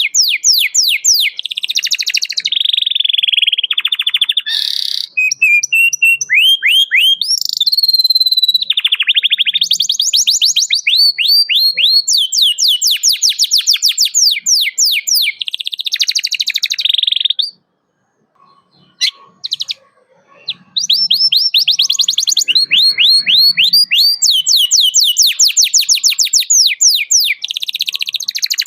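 Domestic canary singing in fast trills of rapidly repeated sweeping notes, broken by a pause of about three seconds past the middle.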